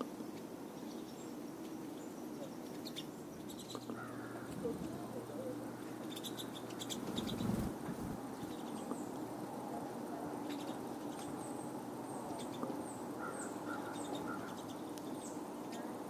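Pine siskins twittering with many short high calls, and a brief flutter of wings close by about seven and a half seconds in.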